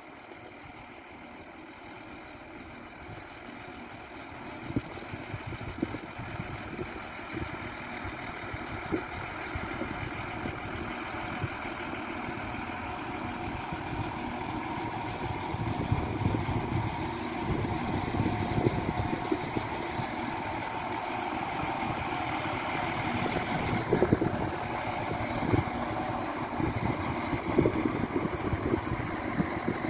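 Irish Rail 22000 class diesel multiple unit moving slowly past, its underfloor diesel engines running and growing steadily louder as it draws nearer. Now and then a sharp clack of wheels over rail joints stands out.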